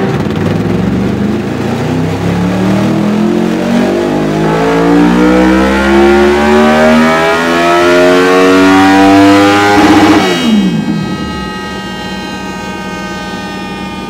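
Honda VFR800X Crossrunner's V4 engine breathing through a Dominator aftermarket slip-on muffler, making a full-throttle pull on a rear-wheel dyno: the revs climb steadily for about ten seconds, then the throttle shuts and the revs fall away quickly to a quieter, steady running.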